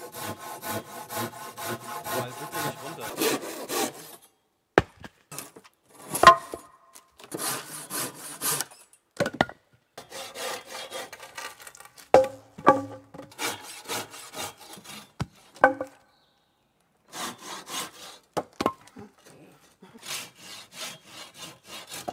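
Hand saw cutting through the ends of thin wooden wall logs, in several runs of quick back-and-forth strokes with short breaks between them and an occasional knock of wood.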